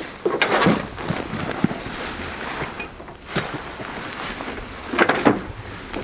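Rustling of rain-jacket fabric and dry grass as a person moves through the brush, in a few louder brushing bursts, the loudest about five seconds in, with one sharp tick about a second and a half in.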